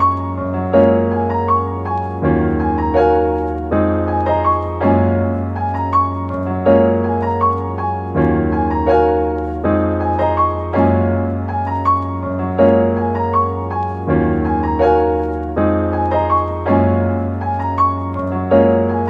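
Background piano music: a gentle run of piano notes over a held low bass, the harmony changing every couple of seconds.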